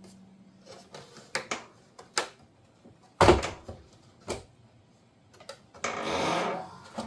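Scattered clicks and knocks of tools and parts being handled while a dishwasher door is taken apart, with one loud knock about three seconds in. A ringing tone fades out during the first second, and about a second of scraping comes near the end.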